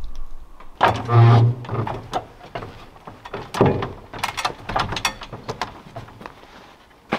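Aluminium extension ladder rattling and clanking under someone climbing it: a loud grating rattle about a second in, then a run of sharp knocks and clanks as feet and hands take the rungs.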